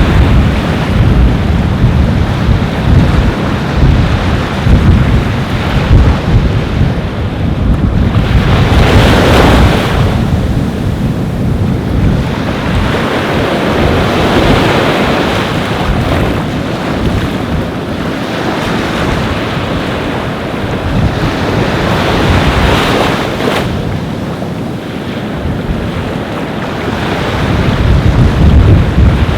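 Ocean surf breaking and washing up a beach, with wind buffeting the microphone in a low rumble. Waves surge louder about a third of the way in and again about three quarters of the way in.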